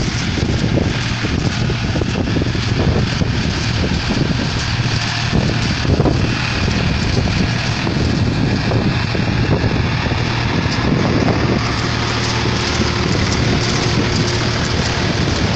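Tractor engine running steadily while it drives a round baler, a constant low drone, with wind buffeting the microphone.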